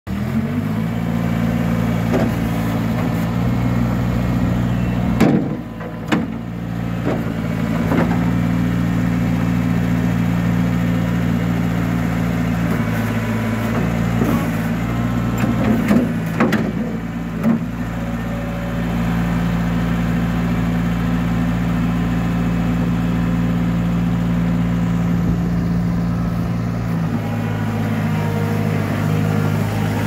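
Mustang skid-steer loader's engine running steadily, its note shifting a few times as the machine drives and raises its loader arms. Several sharp knocks stand out, a cluster about five to six seconds in and more around sixteen to seventeen seconds.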